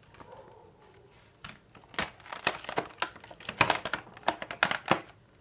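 A remote control's packaging being handled and crinkled: the cut plastic cover and paper documentation give an irregular string of sharp crackles and clicks, starting about a second and a half in.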